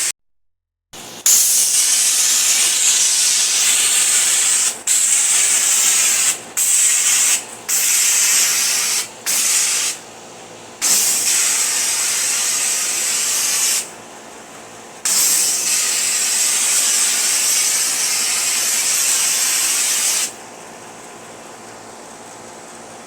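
Tipless softwash spray wand shooting a stream high onto a house wall: a loud spray hiss, switched off and on about six times, then released near the end. A quieter steady machine hum then remains.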